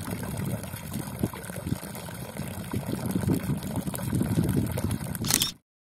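Water pouring and splashing from a village spring fountain into its long stone trough, a steady rushing splash that cuts off suddenly near the end.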